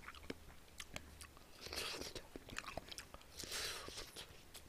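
Close-miked chewing of fresh strawberries: faint wet mouth clicks, with two longer stretches of chewing a little under two seconds in and about three and a half seconds in.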